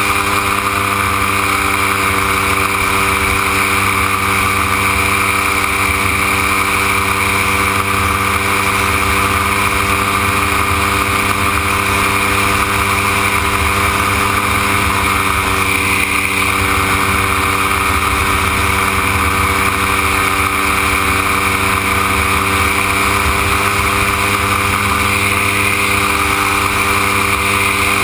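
Gyroplane engine running steadily at cruise power, heard from on board in flight, with wind noise on the microphone. The drone holds an even pitch with no change in power.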